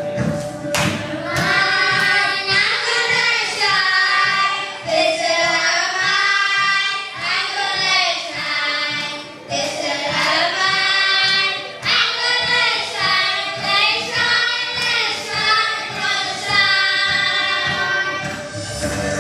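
Children singing together into handheld microphones, amplified over a church sound system.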